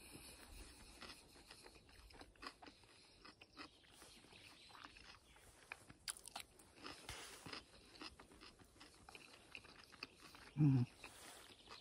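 A man crunching and chewing a piece of fresh cucumber close to the microphone: a run of small crisp crunches. Near the end comes one short voiced sound that falls in pitch.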